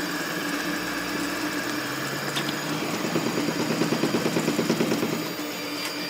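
The stepper motors of a core-XY 3D printer whirr as they drive the print head in a high-speed, high-acceleration print run at 600 mm/s and 35,000 mm/s². Over a steady hum, the motor sound pulses rapidly in the middle, about eight times a second, then settles again.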